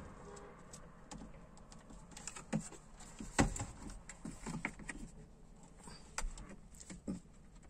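Scattered, irregular clicks and knocks of hands working inside a car's dashboard cavity, handling a pulled-out metal stereo head unit and its plastic trim and connectors. The sharpest knock comes about three and a half seconds in.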